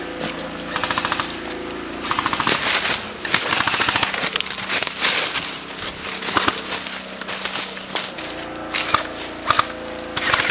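Airsoft electric guns (AEGs) firing several rapid full-auto bursts, each a fast run of clicks lasting a second or more.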